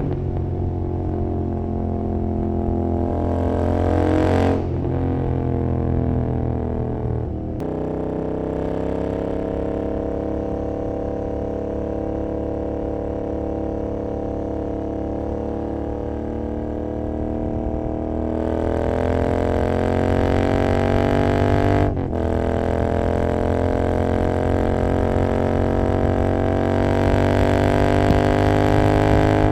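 Royal Enfield Continental GT 650's 648 cc parallel-twin engine running at speed through an open Emgo Hooligan exhaust with no dB killer. The engine note climbs as the bike accelerates, breaking and dropping in pitch at gear changes about four and a half seconds in, about seven and a half seconds in, and again near twenty-two seconds.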